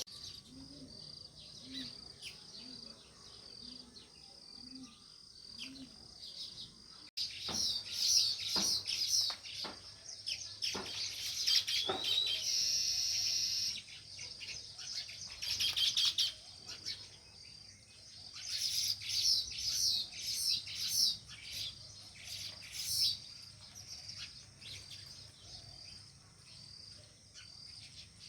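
House sparrows chirping: rapid, overlapping high chirps that come in busy bursts, sparse at first and thickest through the middle. A steady faint high-pitched tone sits underneath throughout.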